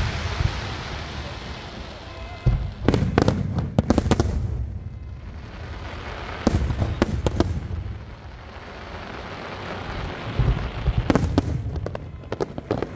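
Aerial fireworks display: shells bursting in three clusters of sharp bangs, about three seconds in, about seven seconds in and near the end, with a steady rushing hiss in between.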